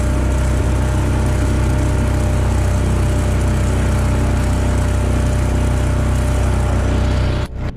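Outboard motor of a small aluminum fishing boat running steadily at speed while the boat is under way. It cuts off suddenly near the end.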